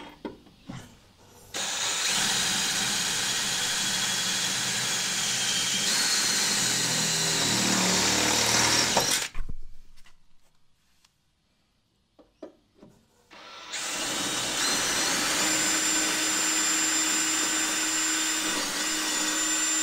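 DeWalt XR cordless drill running under load, boring holes through the sheet-steel seam of a 1976 Toyota Celica's body in two long runs. The first lasts about eight seconds; the second starts about halfway through. Each run carries a high whine that steps up in pitch partway through. The steel is hard going, which the drill's owner puts down to heat from the earlier spot welding.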